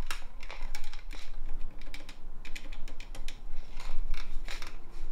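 Quick clicks and clatter of a corded landline telephone being handled and dialed.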